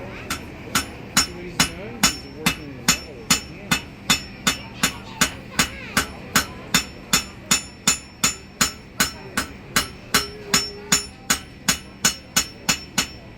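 Blacksmith's hammer striking hot steel on an anvil in a steady rhythm of about two and a half blows a second, each blow ringing. He is drawing out and tapering a knife blade.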